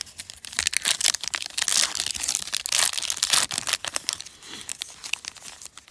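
Foil wrapper of a football trading-card pack being torn open and crinkled by hand. The crackling is densest in the first four seconds and thins out near the end.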